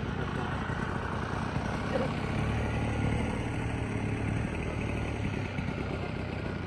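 Piston engine of a large radio-controlled scale model of the Raiden fighter running at idle, getting a little louder midway through and settling again.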